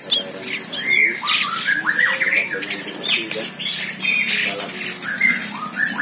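Many birds calling at once: a busy tangle of short, overlapping rising and falling notes.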